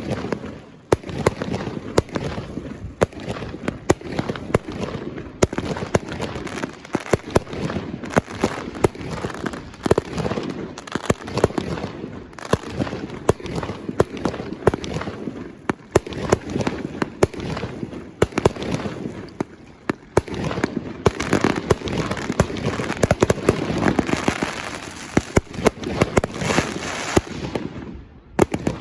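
Fireworks display: many sharp bangs of shells bursting in quick succession over continuous crackling, with a short lull near the end.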